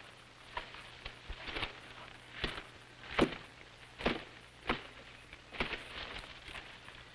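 Footsteps crunching through dry leaves and brush as men push through thick undergrowth: a string of uneven steps, roughly one or two a second, the loudest a little after three seconds in.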